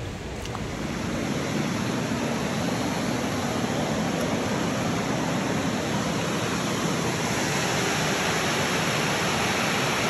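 Steady rush of water falling at a waterfall, an even dense noise that swells over about the first second and then holds constant.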